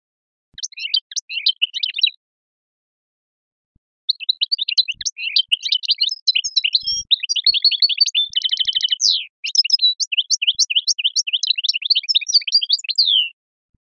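European goldfinch singing in the Algerian 'sharqi' song style. A short twittering phrase comes about half a second in, then a long phrase from about four seconds in of fast twitters and trills. Midway through the long phrase there is a brief buzzy rattle, and it ends with a run of quick repeated notes.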